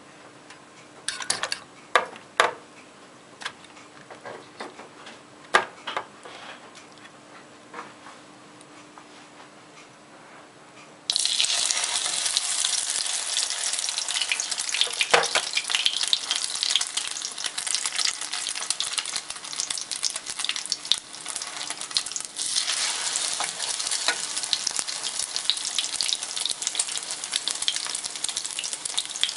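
A metal fork clicking against a ceramic bowl as eggs are beaten, scattered taps over a faint steady hum. About eleven seconds in, loud, steady sizzling starts suddenly: egg-dipped bread frying in hot oil in a pan.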